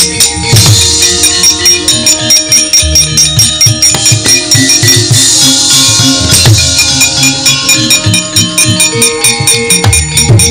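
Javanese gamelan playing a lively piece for a wayang kulit scene: sustained metallophone and gong notes, hand-drum strokes, and the dalang's keprak metal plates clattering in a fast, even beat. There are two sharper crashes, about half a second in and again a little past six seconds.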